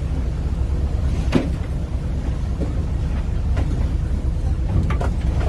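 A fishing trawler's engine running with a steady low rumble, with a few sharp knocks about a second and a half in, midway and near the end.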